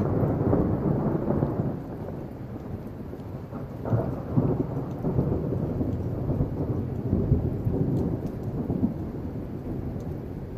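Thunder rumbling over steady rain. A rumble eases after the first couple of seconds, then a fresh rolling rumble starts about four seconds in and dies away near the end.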